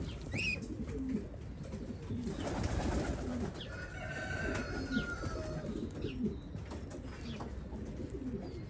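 A flock of domestic pigeons cooing, low coos repeating over and over, with a few brief higher chirps among them.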